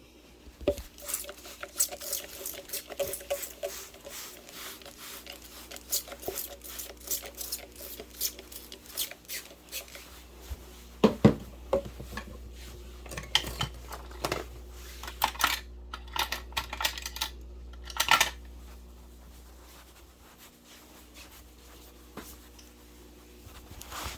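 Barber's long scissors snipping hair: quick irregular runs of sharp metallic snips, thinning out after about eighteen seconds, over a faint steady low hum.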